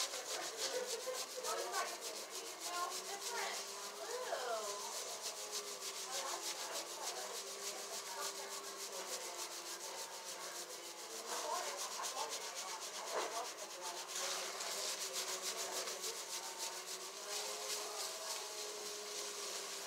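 Fingertips scrubbing a shampoo-lathered scalp: a steady, rapid wet rubbing of foamy hair.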